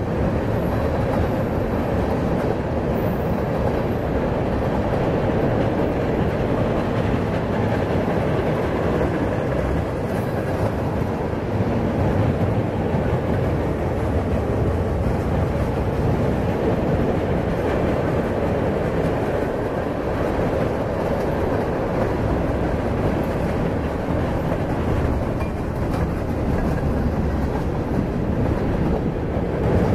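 Freight train of tank cars, gondolas and boxcars rolling across a steel truss bridge: a steady rumble and rattle of wheels on rail.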